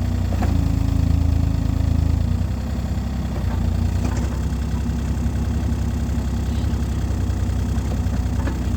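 Excavator's diesel engine running steadily, a little louder for the first couple of seconds, with a few faint clicks.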